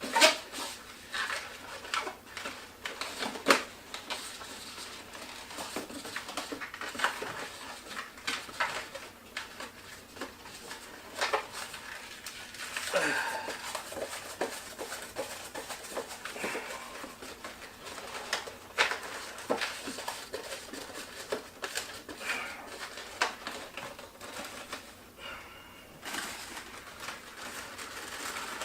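Latex twisty balloons rubbing and squeaking as they are handled and twisted, with irregular sharp clicks and short squeaks scattered throughout.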